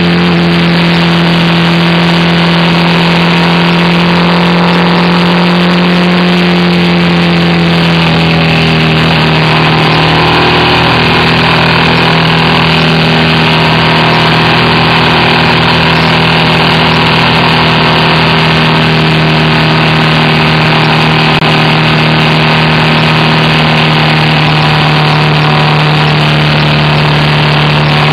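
BMW R1200RT's flat-twin boxer engine running steadily under way, heard from on the motorcycle with road and wind noise. Its pitch drops a step about eight seconds in and then holds.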